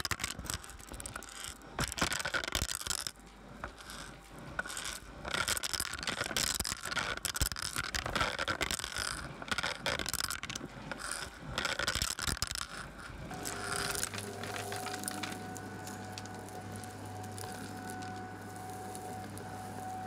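A Shark Lift-Away vacuum's crevice tool sucks across carpet, with quick clicks and rattles of debris being pulled up the wand. About 13 seconds in the rattling stops and a steady motor drone with a thin whine is left.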